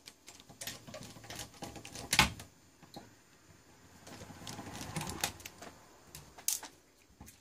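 Scattered metal clicks and knocks from hands working the front panel of an old bench power supply loose, the sharpest about two seconds in.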